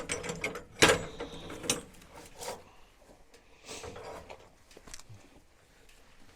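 Knocks and scraping clunks as a red oak log is turned on a portable sawmill bed, with the sharpest clunk about a second in and a few more knocks after it.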